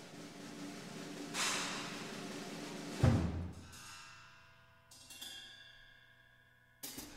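Big band playing avant-garde jazz. Held tones from the ensemble swell at about one and a half seconds. About three seconds in comes a loud percussion hit, whose ringing tones slowly fade. A few sharper struck hits follow, the last near the end.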